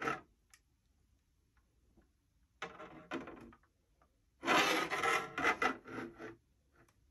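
A diecast model car on its plastic display stand is being turned and slid around on a wooden desktop, making rubbing, scraping noises. There is a short scrape at the start, another before the middle, and a longer one of about two seconds after that.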